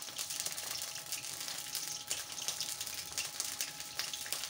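Hand squeezing and mixing cauliflower florets with gram flour and spices in a plastic bowl: a continuous crackly rustle with many small clicks.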